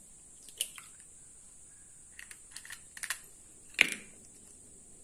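Eggs being tapped against a bowl's rim and cracked open: scattered sharp clicks and light ticks, the loudest crack just under four seconds in.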